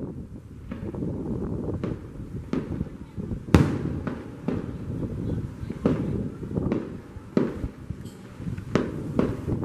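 Aerial fireworks shells bursting in a string of sharp bangs, about one a second, the loudest about three and a half seconds in.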